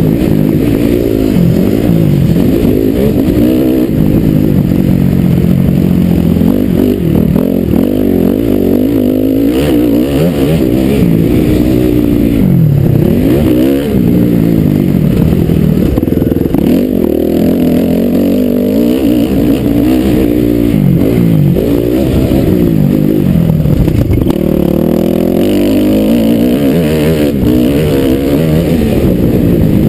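Dirt bike engine under hard riding, its pitch climbing and dropping every few seconds as the throttle is opened and shut and the gears change. It sounds muffled and low, with little treble.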